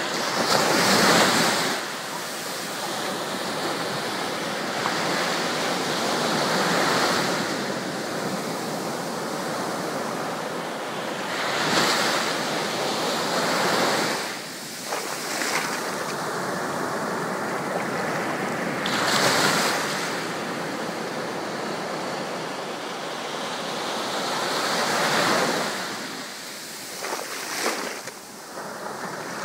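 Sea surf at the water's edge: small waves break and wash up the shore in a continuous hiss, swelling louder every five to seven seconds as each wave comes in. The loudest comes about a second in.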